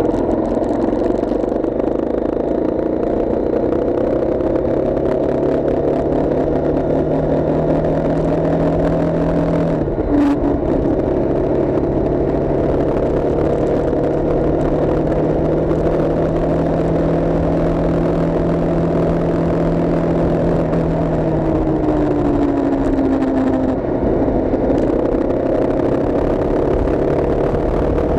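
A vehicle's engine pulling along the highway over steady road noise. Its pitch climbs slowly, drops sharply at a gear change about ten seconds in, climbs again, then falls off after about twenty seconds.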